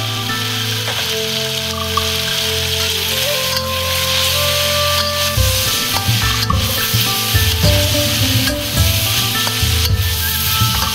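Chicken and vegetables sizzling hard in a hot seasoned steel wok over a charcoal fire, stirred with a metal wok spatula that scrapes the pan now and then. Background music runs underneath, with a beat coming in about halfway.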